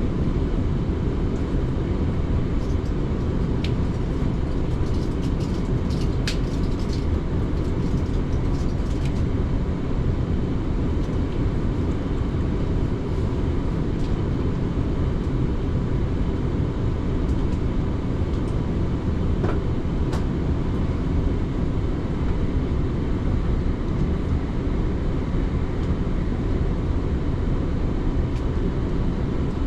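South Western Railway passenger train running along the line, a steady low rumble of wheels on rails, with a few faint brief clicks between about three and nine seconds in and again near twenty seconds.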